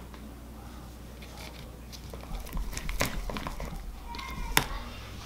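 A metal fork stirring slime in a plastic cup, starting about two seconds in. It makes scattered clicks and scrapes as the fork knocks against the cup, the sharpest one near the end.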